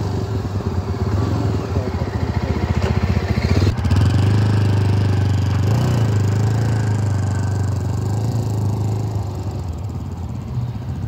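Yezdi Adventure's single-cylinder engine running at steady low revs as the motorcycle rolls slowly past on gravel. It grows louder to a peak about four to six seconds in, then fades as the bike moves away, with tyres crunching on the gravel.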